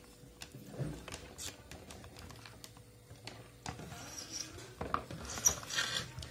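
Light handling noise from a multimeter, its probe lead and a motherboard: scattered small clicks, taps and rubbing, busier and louder about five seconds in.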